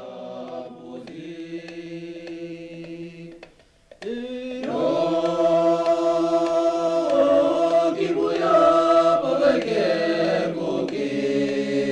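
Background music of several voices singing long held notes together: softer at first, a brief break about four seconds in, then fuller and louder.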